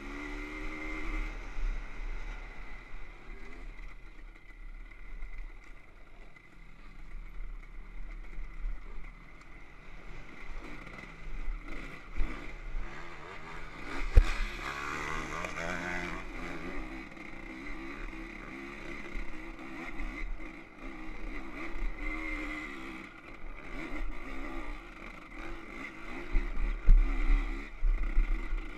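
Dirt bike engine running and revving up and down as it is ridden over a rough dirt track, with a low rumble of wind on the bike-mounted microphone. A single sharp knock about halfway through, and harder revving near the end.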